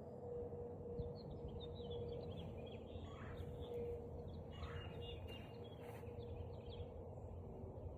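Birds chirping in quick, short repeated calls over a steady low hum and background noise.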